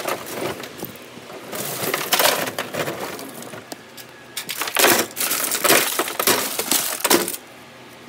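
Shredded electronics scrap, torn sheet-metal, plastic and circuit-board fragments from printers, clattering and clinking in a bin in two dense bursts, stopping abruptly about seven seconds in.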